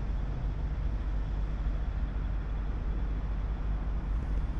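Steady outdoor background noise: an even hiss over a heavier low rumble, with no distinct events.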